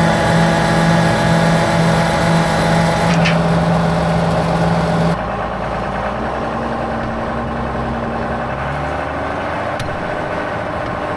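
Tractor engine running steadily. About five seconds in the sound drops abruptly to a quieter engine hum that rises in pitch near the end.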